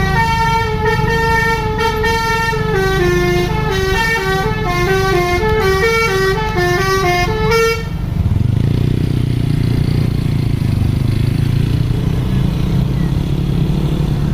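A bus's telolet horn, a multi-tone musical air horn, plays a stepped melody of quick changing notes for about eight seconds, then stops. After it the bus's diesel engine runs loud and low.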